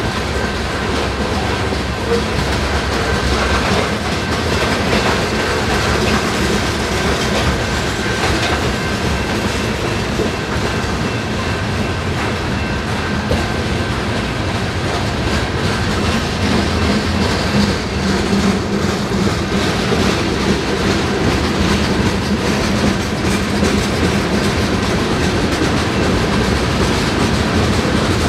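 BNSF freight train passing: covered hopper cars and then a tank car roll by. Their steel wheels give a steady rumble on the rail and click over the rail joints, with a faint thin high ring that fades out about halfway through.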